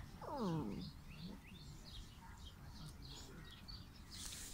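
Small birds chirping over and over in the background, with one short falling vocal sound in the first second.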